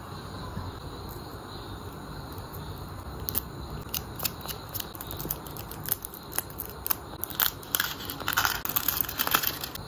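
Foil wrapper of a Kinder Surprise chocolate egg crinkling and crackling as it is peeled off by hand. The crackles start about three seconds in and grow denser and louder toward the end.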